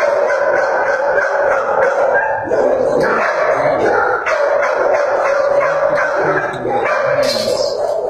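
Shelter dogs in their kennels barking and yipping without a break, several at once, making a steady loud din.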